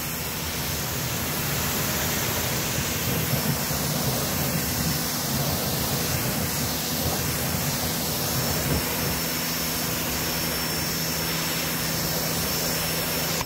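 Sun Joe electric pressure washer running under load: its motor hums steadily beneath the hiss of a 25-degree nozzle's high-pressure water jet blasting a car wheel and the gravel around it.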